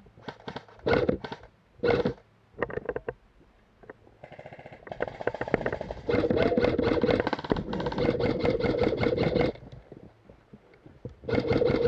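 Airsoft electric rifle firing: several short bursts of rapid clatter in the first three seconds, then one long full-auto burst from about four to nine and a half seconds in.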